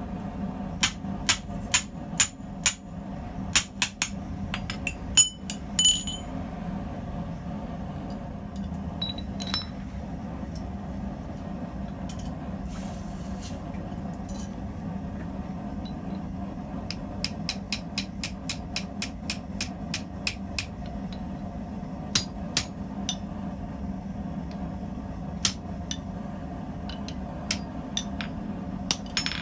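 Hammer striking steel on an anvil in irregular groups of sharp, ringing blows, with a quick run of lighter strikes about four a second near the middle. A steady low hum runs underneath.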